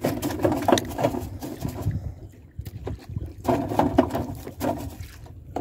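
Steady low wind-and-sea noise on board a small wooden outrigger fishing canoe drifting at sea, with two brief spells of louder pitched sound in the first second and again about three and a half seconds in.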